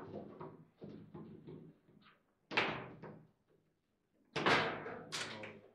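Table football (foosball) play: sharp knocks and thuds as the ball is struck by the plastic figures and the rods bang in the table, four main hits with the loudest two close together near the end.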